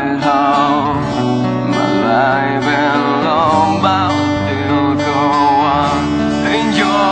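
Strummed acoustic guitar with a voice singing a melody over it, the held notes wavering with vibrato.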